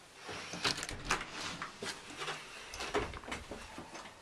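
A front door's lever handle turned and the door pulled open: a string of latch clicks and knocks, the loudest about a second in and again near three seconds.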